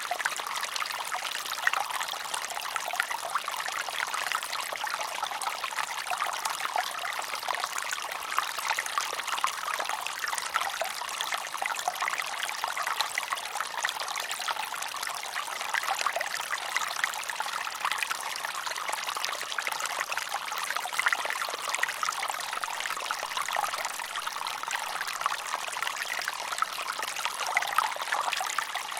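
Mountain stream running over rocks: a steady trickling, splashing rush of water, with no change throughout.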